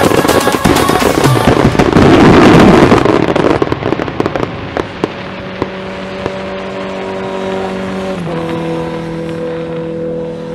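Aerial fireworks in a finale barrage: a dense, rapid crackle of bursts and bangs that thins out after about four seconds into a few scattered pops. Music with held chords plays under it and carries on alone, changing chord near the end.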